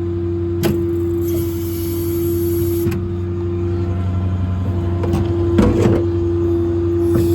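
Steady machine hum from the running service truck, holding one strong steady tone that drops out for a moment about halfway through. A few sharp clicks and clanks sound over it, with a cluster of them near the end.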